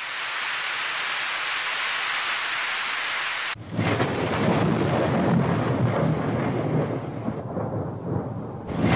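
A steady rain-like hiss fades in, then about three and a half seconds in it cuts abruptly to a deep, continuous thunder-like rumble.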